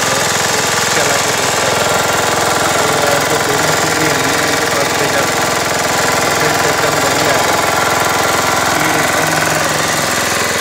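Om Agro World ATT 911 power weeder's engine running steadily under load as the machine earths up soil between crop rows.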